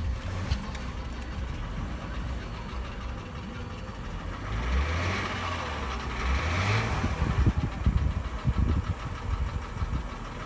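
Mercedes-Benz W164's M272 V6 engine running with a knock, revved up briefly twice near the middle. The owner cannot tell whether the knock comes from the pistons or the hydraulic lifters.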